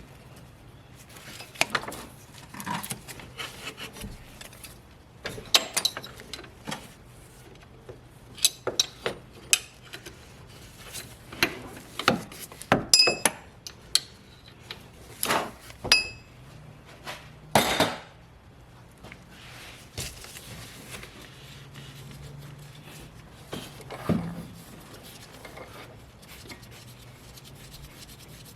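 Metal hand tools clinking and scraping against engine parts while a 14mm bolt at the alternator pulley is undone: irregular sharp clicks and clanks, two of them ringing briefly, then quieter rubbing and scraping near the end.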